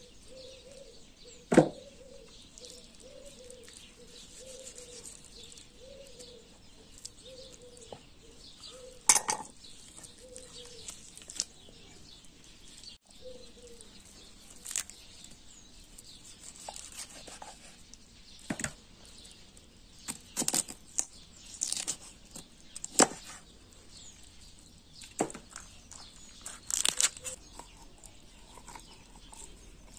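Kitchen knife cutting up a raw chicken on a wooden cutting board: irregular sharp knocks of the blade striking the board, coming more often in the second half, with quieter cutting sounds between them.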